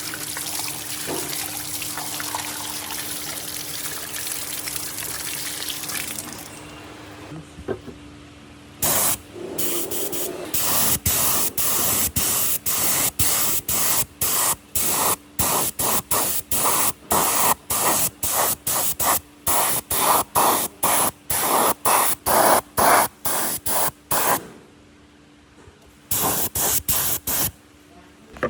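Hissing spray from a nozzle: a steady spray for about six seconds, then, after a pause, many short bursts at about two or three a second.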